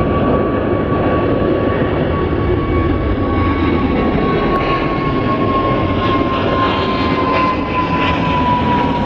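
Jet airliner passing close by, loud engine noise with a high whine that slowly falls in pitch.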